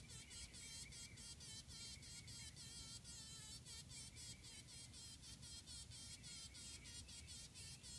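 Faint insect chirping in a steady rhythm of about five high pulses a second.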